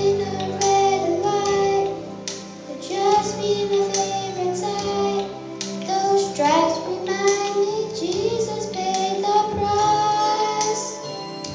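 Children singing a song over instrumental accompaniment, the sung melody carried over a steady backing.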